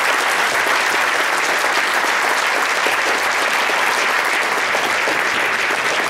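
A large audience applauding steadily: sustained, dense clapping from a full lecture hall after a talk ends.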